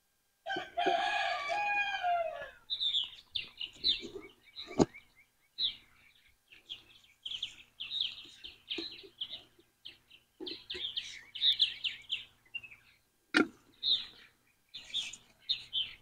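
A rooster crows once, starting about half a second in, the call falling in pitch at the end. It is followed by songbirds chirping on and off, with two sharp knocks, one about five seconds in and one near thirteen seconds.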